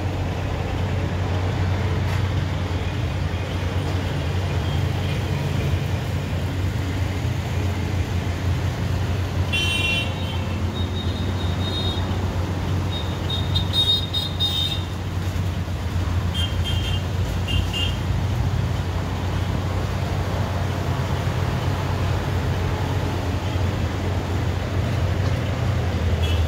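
Road traffic: a steady low rumble of passing engines, with vehicle horns honking briefly several times in the middle.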